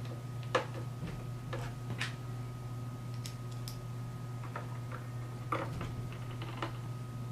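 Scattered small clicks and taps of a hex driver and metal standoffs being handled and seated, about seven at uneven intervals, over a steady low hum.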